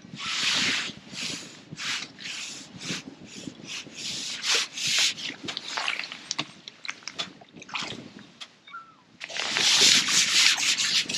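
Irregular rustling and rubbing, a run of short scraping rushes with a few clicks, and one longer, louder rush near the end.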